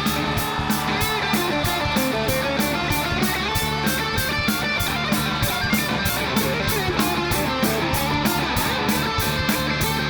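Rock band playing live in an instrumental passage, electric guitar to the fore over a steady drum beat with evenly struck cymbals.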